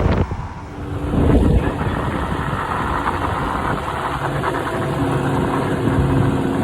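Truck engine running with a steady drone.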